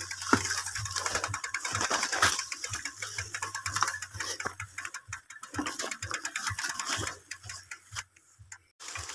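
Mountain bike's rear freehub clicking fast as the bike rolls without pedalling, mixed with light rattling of the bike over rough ground. The ticking thins out after about seven seconds and stops briefly near the end.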